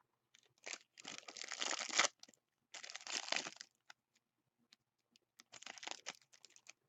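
Sticky cellophane wrapping on a trading card pack being torn and crinkled off in three bursts of crackling, with small clicks in between.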